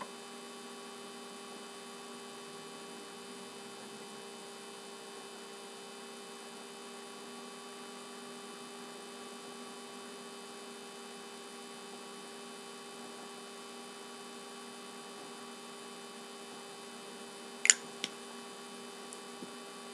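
Steady electrical hum made of several fixed tones, with one sharp click about two seconds before the end.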